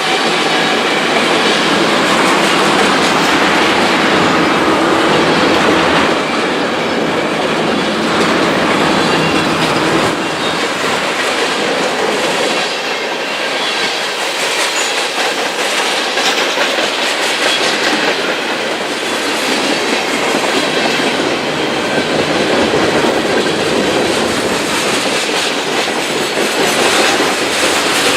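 Canadian Pacific freight train cars rolling steadily past, loud, with steel wheels clattering over the rail joints and some wheel squeal.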